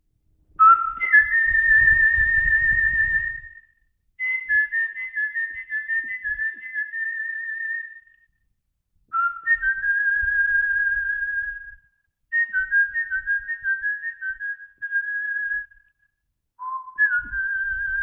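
Solo artistic lip whistling of a slow, lyrical melody, with no accompaniment. Long held notes with a slight waver and gliding slides between them, in five phrases with short breath breaks between them, and a faint low rumble under some phrases.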